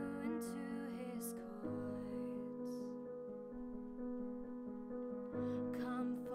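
A solo female voice singing a slow worship song over sustained piano-voiced chords on a Roland Juno-DS keyboard. The singing stops for a few seconds past the middle, leaving the keyboard chords ringing alone, and comes back near the end.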